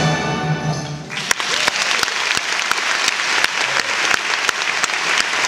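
A youth symphony orchestra holds the final chord of the piece, which cuts off about a second in. Audience applause breaks out at once and keeps going.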